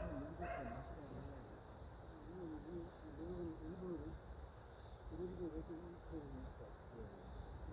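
Steady insect chirring, high-pitched and continuous, with faint indistinct voices in the background.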